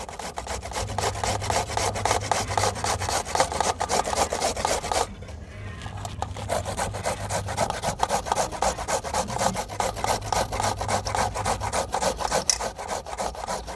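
Carrots being grated by hand on a stainless steel box grater: quick, repeated rasping strokes, which stop for a moment about five seconds in and then carry on.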